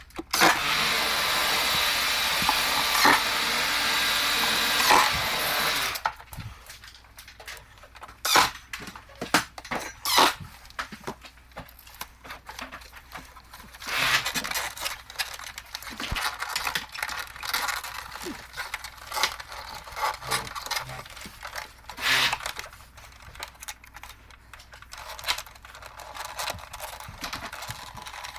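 A steady rushing hiss for about the first six seconds, cutting off abruptly, then scattered clicks and knocks as air conditioner parts are handled.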